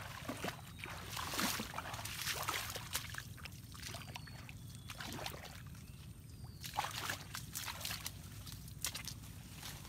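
Feet splashing and squelching through shallow water and soft mangrove mud, then irregular crackles and rustles as hands push in among mangrove shoots and roots to search for crabs.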